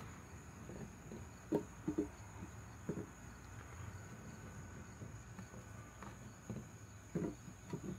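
Small baby potatoes knocking against one another and against a glass bowl as a hand picks them out: a few short, light knocks, bunched around the second and third seconds and again near the end. A steady high insect trill runs faintly behind.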